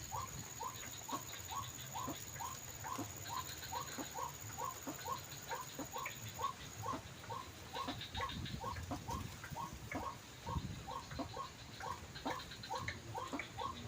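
White-breasted waterhen (ruak-ruak) call played as a lure from an MP3 speaker: a short note repeated steadily, about three times a second. Wind rumbles on the microphone and gusts harder near the end.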